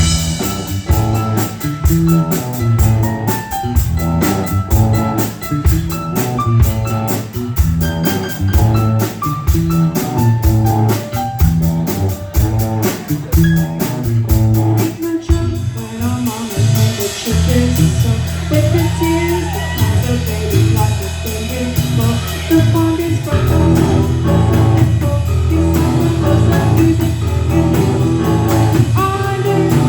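A live rock band playing a song: drum kit, electric guitar and bass. About halfway through, the steady beat gives way to long held low notes under the guitar.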